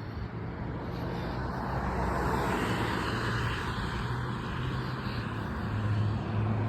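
Motor vehicle passing: a steady rushing hum over a low drone, swelling about two seconds in and again near the end.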